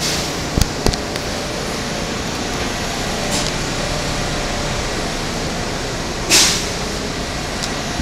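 Steady rush of noise on a subway platform beside a standing R160 train, with a crowd walking off it. A few sharp clicks come just under a second in, and a short burst of hiss about six seconds in.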